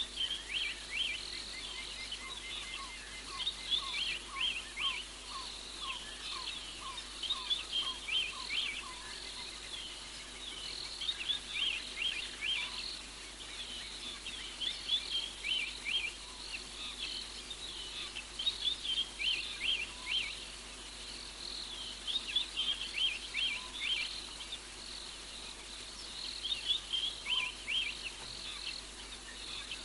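Night-time chorus of frogs and insects: clusters of quick, high, downward chirps repeat every second or two, with a fainter series of lower notes about three a second in the first nine seconds.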